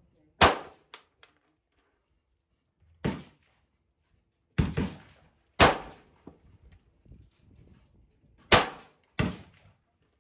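9mm handgun being fired one shot at a time at an unhurried, uneven pace: six loud sharp reports over about nine seconds, each dying away quickly, with a few fainter pops in between.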